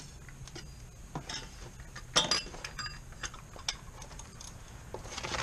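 Irregular clicks and light metallic clinks of a ratchet, socket and oil-filter cap wrench being handled and fitted, with one sharper clink about two seconds in.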